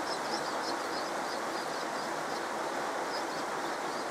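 Heavy rain falling steadily, an even hiss, with faint high chirps repeating over it.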